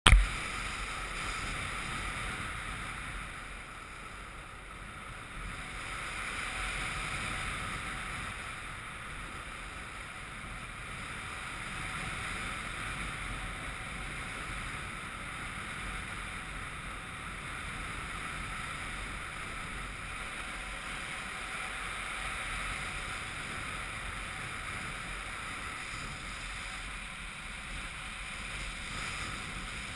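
Steady rush of airflow over the action camera's microphone during paraglider flight, a hiss that swells and eases slightly.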